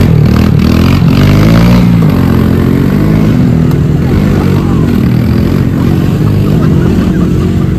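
ATV engines running as the machines are ridden, the pitch rising and falling with the throttle.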